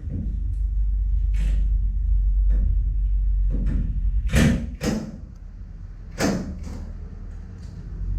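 Metal sliding gate clanking and knocking as it is worked on, several sharp strikes over a steady low rumble, the loudest about halfway through.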